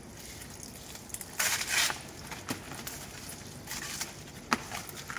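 Rustling and crackling of dry banana leaves and stalk being handled, with a louder rustle about a second and a half in and a few sharp clicks later.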